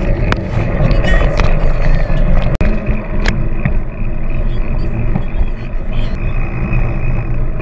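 Wind buffeting the microphone of a camera on a moving bicycle, with steady rolling road noise and a couple of sharp clicks.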